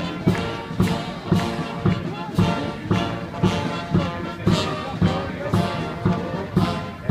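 Military band playing a march, brass over a steady bass drum beat about twice a second.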